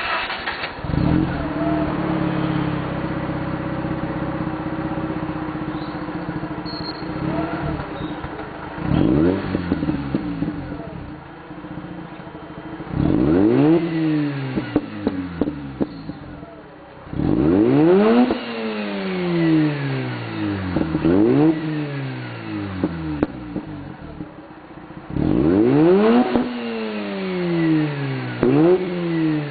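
2004 Mazda RX-8's two-rotor Renesis rotary engine through a Borla cat-back exhaust, running at a steady idle for about eight seconds. It is then free-revved again and again, each blip rising quickly in pitch and falling back to idle.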